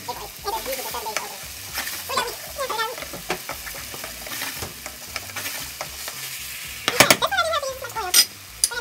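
Plant-based JUST Egg omelette sizzling in a nonstick frying pan while a wooden spatula scrapes and pushes at its edges, with a louder scrape about seven seconds in.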